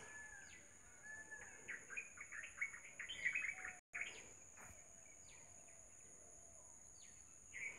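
Faint birds chirping in the background: scattered short chirps and quick downward notes, busiest in the middle, over a steady faint high-pitched whine. The sound cuts out for an instant just before halfway.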